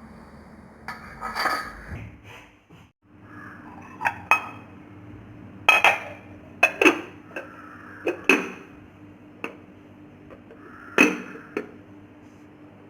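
Clinks and knocks of a microwave-safe bowl and its lid being handled and set down, several sharp strikes spread over the stretch. A steady low hum runs underneath.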